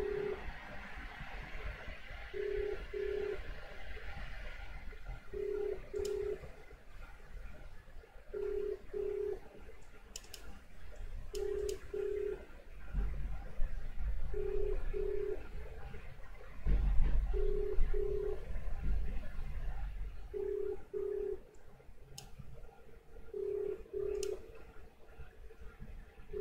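Telephone ringback tone: a double ring repeating about every three seconds, as an outgoing call rings without being answered. Low rumbling bumps come in around 13 and 17 seconds in, with a few faint clicks.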